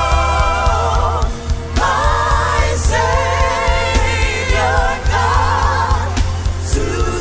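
Live gospel worship music: long held sung notes with vibrato over a steady bass line.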